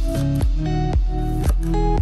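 Background music: a laid-back house track with a steady beat of about two strokes a second under sustained melodic notes.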